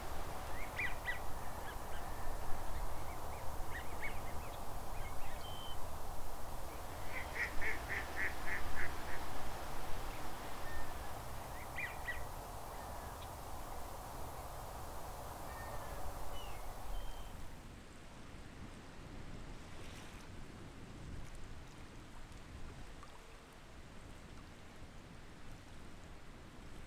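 Wild waterfowl calling on open water over a steady watery background. The calls come as scattered single calls, with a quick run of about eight notes about eight seconds in. Around two-thirds of the way through the sound drops to a quieter, more distant bed with only faint calls near the end.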